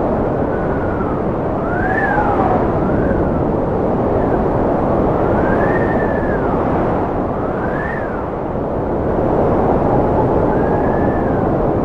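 Cold wind blowing hard and steadily, with a whistling tone that rises and falls about every two seconds over the rushing noise.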